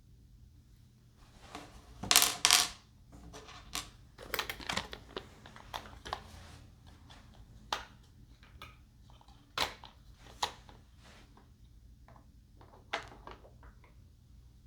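Handling sounds from assembling a foam radio-controlled plane: a loud rustle about two seconds in, then scattered sharp clicks and light knocks of parts being handled.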